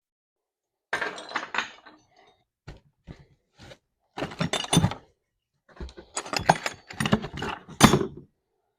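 Metal lathe change gears clinking and clattering against one another as they are handled and set down, in several quick bunches of knocks starting about a second in.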